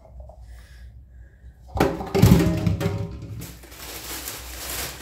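A sudden thump about two seconds in, then a plastic shopping bag rustling as groceries are pulled out of it.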